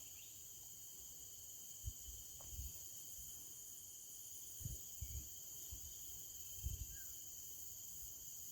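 Steady insect chorus buzzing at several high pitches at once, with a few soft low bumps scattered through.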